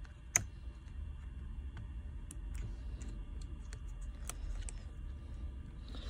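Scattered light clicks and taps of small repair tools working on an opened smartphone, with one sharp click about a third of a second in.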